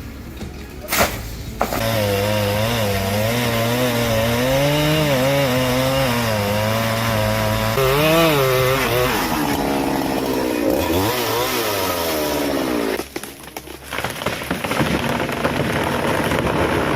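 STIHL two-stroke chainsaw cutting into a tree trunk, its engine pitch wavering up and down under load. It revs higher about nine seconds in and dips briefly a few seconds later.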